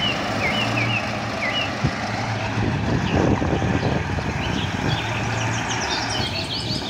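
Heavy eight-wheeled dump truck's diesel engine running with a steady low drone as the truck moves over uneven dirt ground.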